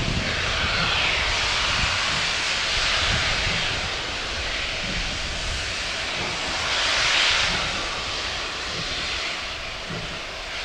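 Steam hissing from GWR 42xx class 2-8-0T tank locomotive 4270, a steady rush that swells twice, the second time about seven seconds in, over a low rumble.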